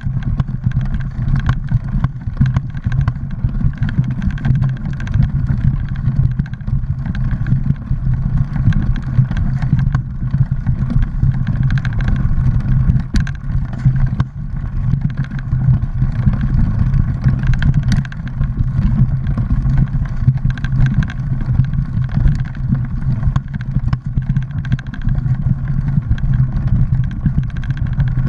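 Mountain bike rolling over a dirt singletrack: steady low rumble of wind and tyres on the camera, with a constant light rattle and a couple of sharper knocks midway through.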